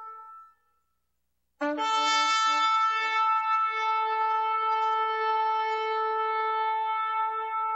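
Shofar blast fading out, then after about a second of silence a second blast starts abruptly with a rough, briefly lower onset and settles into one long, steady note.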